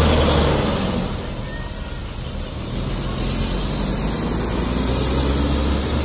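Mercedes-Benz intercity coach's diesel engine pulling away close by, strongest at first and fading within the first second as the coach moves off. A steady lower engine hum carries on after that.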